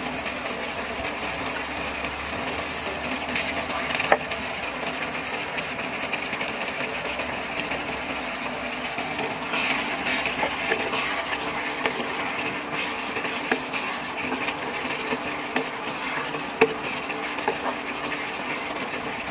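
Tomato-sauce stew of pork, potatoes and carrots simmering in a wok, a steady bubbling hiss at a lowered flame. A wooden spatula stirs through it, louder around the middle, with a few light clicks against the pan.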